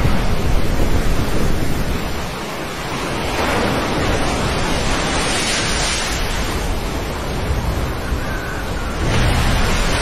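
Wind buffeting the microphone over rough sea, then heavy waves breaking against a ship's side and spray washing over the deck, with a fresh surge of breaking water near the end.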